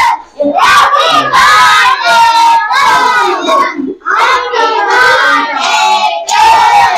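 A group of children singing and shouting together loudly, in long held phrases with short breaks.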